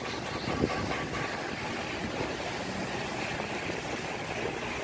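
Steady rush of wind and rain from Hurricane Dorian's storm, with no clear breaks.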